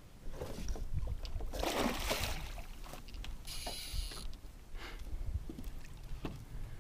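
A hooked fish splashing at the surface beside a small boat as it is played on a spinning rod, loudest about two seconds in, with short knocks and rattles in the boat as the landing net is picked up. Wind rumbles on the microphone.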